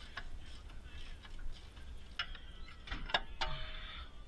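Wrench and steel suspension hardware clicking and clinking as the Dodge Durango's rear upper control arm comes free: light scattered ticks at first, then from about two seconds in a few sharper metal clinks that ring briefly.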